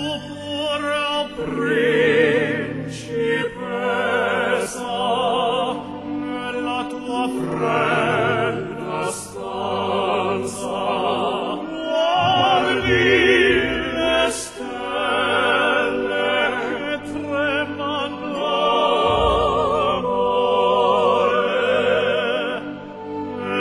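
Opera singing: a voice holding long, wavering notes in phrases over instrumental accompaniment.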